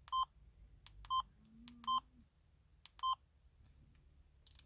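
Yaesu FT5D handheld transceiver giving short key-press beeps, four in all about a second apart, each just after the click of a button being pressed, as the radio is stepped out of its menu.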